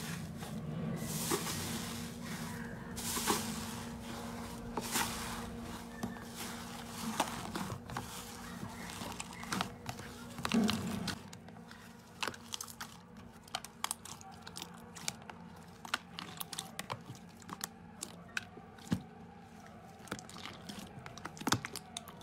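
Hands pressing into and kneading a tub of thick green slime, making a run of small crackles and pops. The crackling is denser and hissier for the first half and thins to sparser, sharper clicks after about halfway.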